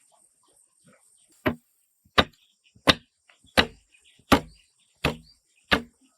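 A hand tool chopping into wood with steady, even strokes: seven sharp chops about 0.7 s apart, starting about a second and a half in. Insects buzz steadily in the background.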